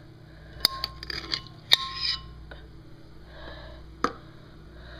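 Kitchenware being handled: about five sharp knocks and clinks, two of them ringing briefly like glass, with scraping in between.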